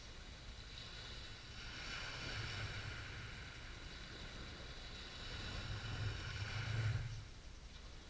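Small waves on a calm sea breaking and washing up the beach: a hiss of surf that swells over several seconds with a low rumble, loudest about seven seconds in, then falls away quickly.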